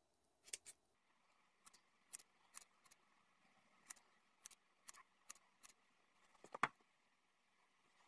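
Hair-cutting scissors snipping into the ends of a fringe in point cuts: about a dozen quiet, uneven snips, one louder than the rest late on.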